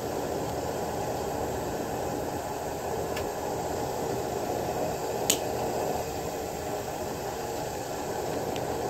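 Steady low background hum and hiss, with a faint tick about three seconds in and one sharp click about five seconds in, from a tool working at a chainsaw bearing's seal to pop it out.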